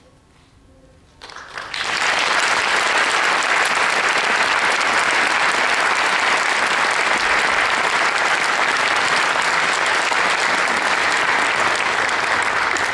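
Audience applause breaking out about a second in after a brief hush, rising quickly and then holding steady and loud.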